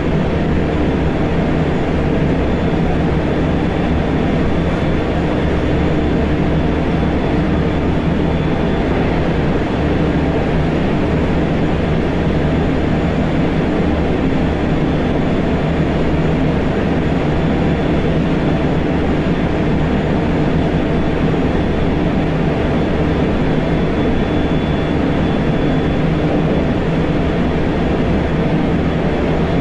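Steady running noise inside the motor car of a JR Central 373 series electric train under way: wheels on the rails and the drive, with a faint steady high tone over the rumble.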